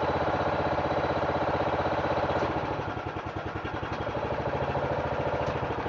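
Engine of a hydraulic power unit running steadily while it drives a jack cylinder that lifts a settled brick column, building pressure toward about 2500 PSI. It drops slightly in level about halfway through, then steadies.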